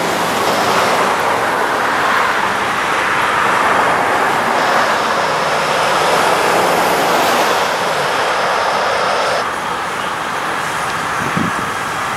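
Norfolk Southern diesel locomotive approaching, engine running with a steady rushing noise that eases off slightly about three-quarters of the way through.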